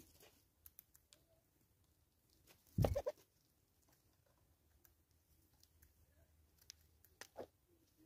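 Light scattered taps and clicks of a southern red-billed hornbill's bill pecking seed from a plastic container, with one short, louder burst of a few quick pulses about three seconds in.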